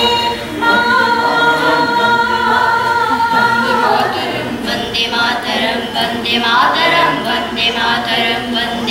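A mixed group of children and adults singing a song together without accompaniment. Long held notes come in the first few seconds, then shorter sung syllables.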